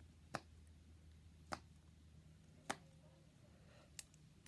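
Four sharp single clicks from a fidget toy being popped, evenly spaced a little over a second apart.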